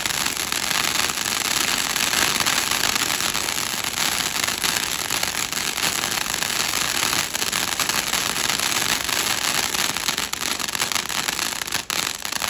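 TNT Wild Side fountain firework spraying: a steady hiss packed with rapid crackling from the glittering stars, with a sharper pop near the end.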